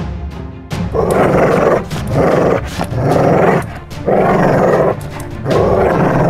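A dog growling and barking in five loud bursts, each about half a second to a second long, over background music with a steady beat.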